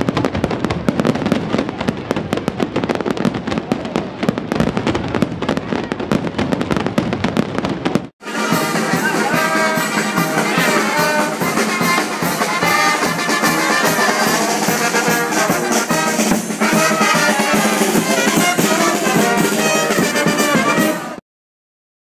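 Dense, rapid crackling of fireworks for about eight seconds, then a brass band playing, which stops abruptly about a second before the end.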